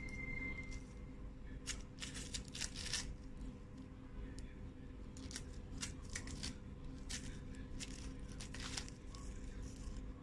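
A kitten biting and tearing at long, narrow plant leaves: a string of short, crisp rips and crunches at irregular intervals, over a steady low hum.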